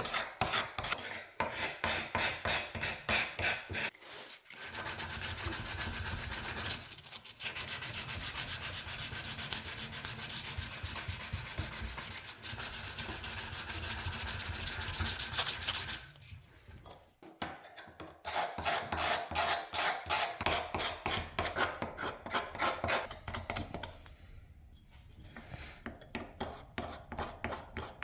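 Abrasive rubbing on hand plane parts, as in sanding or filing. It starts as quick back-and-forth strokes, about three a second, then runs as a long, more even stretch of rubbing. After a brief pause the distinct strokes return, growing fainter near the end.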